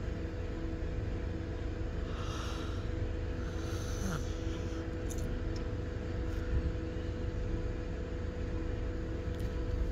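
A bus in motion: a steady low rumble of engine and road with a constant hum above it.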